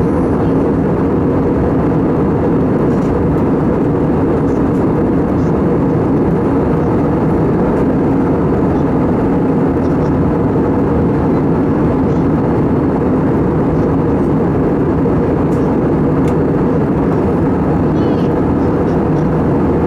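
Airbus A320 cabin noise: a steady, unchanging rumble of engines and airflow heard from inside the cabin.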